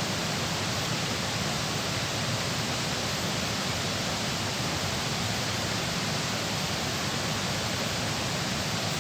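Steady rush of water pouring through a dam, an even hiss with no breaks.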